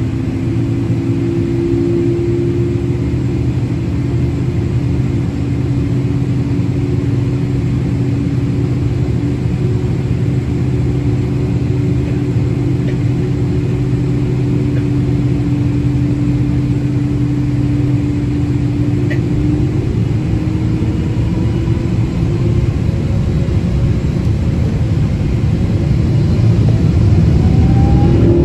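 Airliner engines running at takeoff power, heard from inside the cabin: a loud, steady rumble with a low drone, and a tone that rises near the end.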